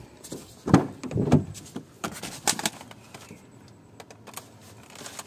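Clicks and thuds as a Mahindra TUV300's door is opened and someone gets into the cabin, with the loudest knocks about a second in and another cluster of clicks past the two-second mark.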